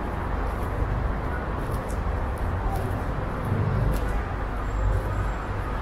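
City street ambience: a steady low rumble of road traffic, with no single sound standing out.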